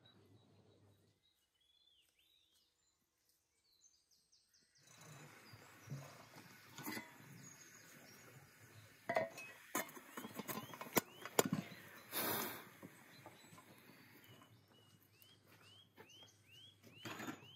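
Nearly silent for the first few seconds, then small birds chirping outdoors, with a run of short falling chirps near the end. A few sharp metal knocks and clanks in the middle come from a samovar and its chimney pipe being handled.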